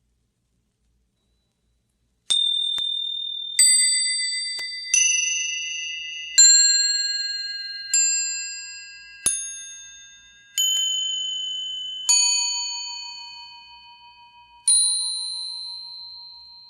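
Small Chinese bells struck one at a time, starting about two seconds in: nine strikes, roughly one every second and a half, each a different clear pitch that rings on and slowly fades.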